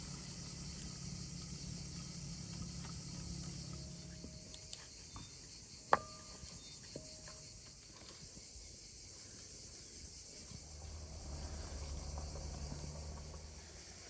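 Steady high chirring of insects such as crickets, with one sharp, ringing clink of metal cookware about six seconds in and a few lighter clicks around it.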